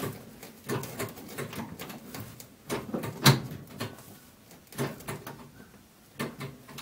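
Gear lever and gearbox of a Triumph Spitfire Mk3 being worked by hand, a string of irregular clunks and clicks, the loudest about three seconds in. The lever doesn't feel like it goes fully into gear.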